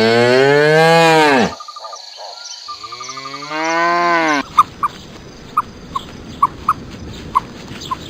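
Cow mooing twice, two long calls that fall in pitch at the end. A little past halfway it gives way to a steady high hum with short sharp chirps about once or twice a second.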